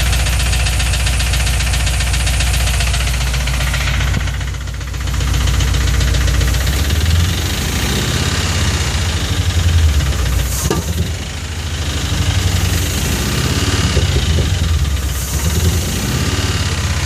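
Car engine running with a steady, rhythmic knocking, which the owner suspects may be rod knock or a fuel injector stuck open.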